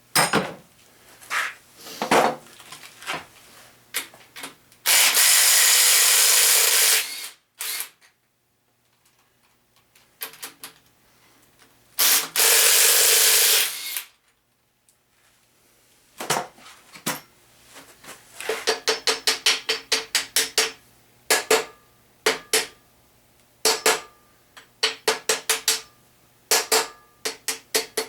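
A power tool runs in two bursts of about two seconds each. Then a hand ratchet clicks in quick runs of several clicks, among scattered metal knocks: the connecting-rod cap nuts of a 1977 350 short block being loosened.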